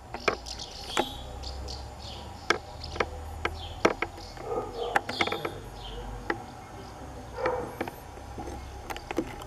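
Small birds chirping, with many sharp clicks and knocks over a low steady rumble.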